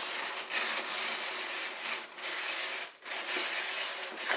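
A long paper scroll being pulled through a cardboard puppet theater, the paper rubbing and scraping against the cardboard in a steady hiss with a few short breaks.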